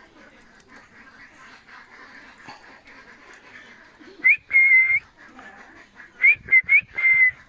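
Parakeet whistling in clear, high notes: one rising whistle that turns into a held note lasting about half a second, then, after a pause, three short rising whistles followed by a longer held note that drops slightly at the end.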